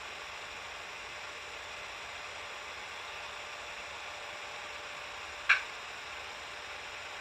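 Steady hissing noise, with a single sharp knock about five and a half seconds in that is much louder than the hiss.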